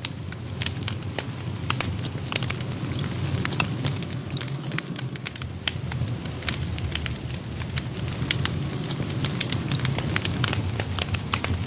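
Campfire burning: wood crackling and popping in quick irregular snaps over the low steady rush of the flames, with a few brief high squeaks or whistles.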